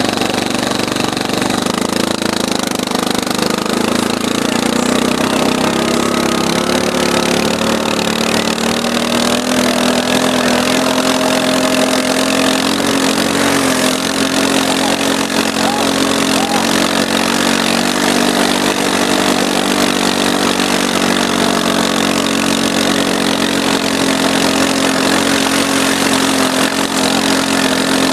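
Arctic Cat 250 ATV engine running steadily while towing two snowboarders on ropes, its pitch shifting slightly now and then.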